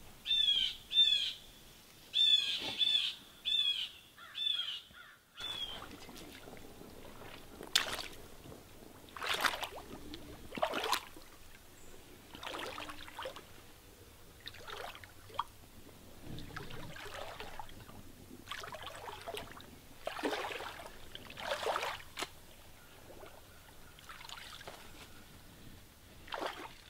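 A bird calls about seven times in quick succession. After a sudden cut, boots in waders splash and slosh through shallow creek water in irregular steps.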